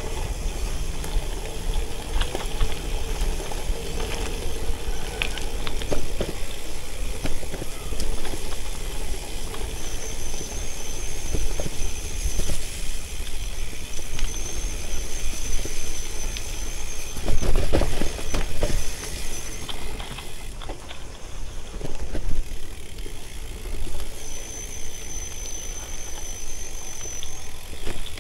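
Gravel bike ridden fast on a dirt forest trail: a continuous rumble of tyres on dirt and air rushing past, with a harder jolt about two-thirds through. A thin high whine comes and goes from about a third of the way in.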